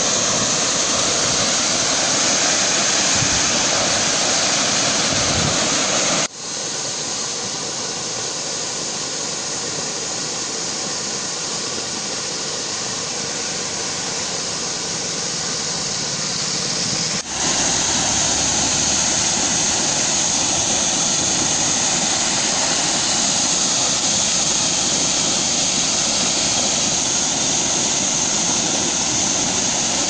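Water jetting under high pressure from a large pipeline's broken gate valve, a loud, steady hissing rush. It breaks off abruptly twice, about six and about seventeen seconds in, and carries straight on.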